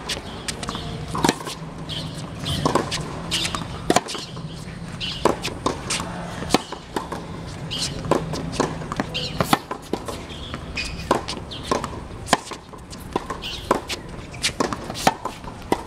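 Tennis rally on an outdoor hard court: sharp knocks of racket strings hitting the ball and the ball bouncing, coming unevenly every second or so, among shoe scuffs on the court.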